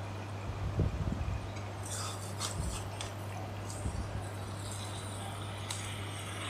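Metal spatula scraping and knocking against an aluminium kadai as chicken in thick masala is stirred and fried (bhuna), with a steady low hum throughout. The knocks come mostly in the first second or so, the scrapes and clinks a little later.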